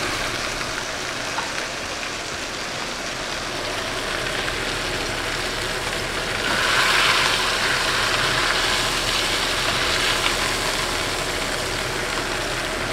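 Ribeye steaks frying in butter in two pans, a steady sizzle that grows louder for a few seconds around the middle as tongs work a steak in the pan and lift it out.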